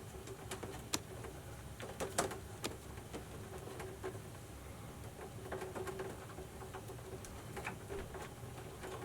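Scattered small clicks and scrapes of hand work on an electrical subpanel, as a tight cable connector's lock piece is worked loose, over a faint steady hum.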